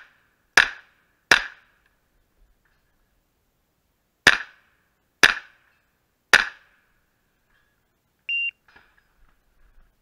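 Pistol-calibre carbine firing five shots: a pair about three-quarters of a second apart, a pause of about three seconds, then three shots about a second apart. A short high beep follows near the end, then a few faint clicks.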